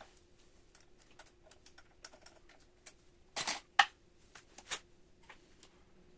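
Light clicks and taps of small parts being handled on a benchtop metal lathe, with a few louder knocks about three and a half seconds in and again near five seconds.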